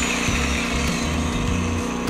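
A circular saw winding down after its trigger is let go, a falling whine that dies away about a second in. Under it, the Pulsar G2319N inverter generator's engine runs steadily.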